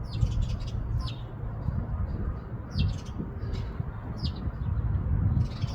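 Small birds chirping: a handful of short, falling chirps spaced a second or so apart, over a steady low rumble on the microphone that is the loudest sound.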